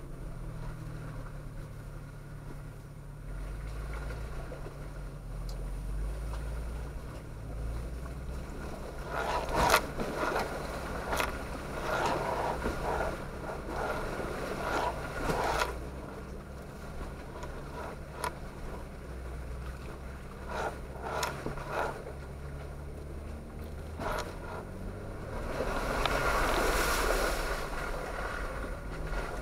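A Jeep's engine running at low speed while its tyres splash through a shallow creek and scrape over rocks. The splashes and scrapes come in a string of short bursts in the middle, with a longer surge of splashing near the end.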